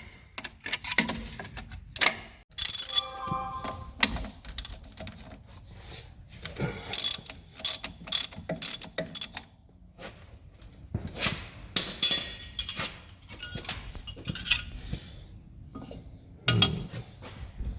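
Ratchet wrench clicking in short irregular bursts, with metal tools knocking and clinking, as bolts on a tractor-backhoe hydraulic pump are worked loose.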